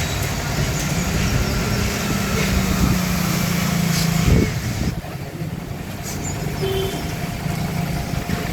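Road traffic: a motor vehicle's engine running close by with a steady low hum and a short knock, then the sound drops away suddenly about five seconds in, leaving quieter traffic noise.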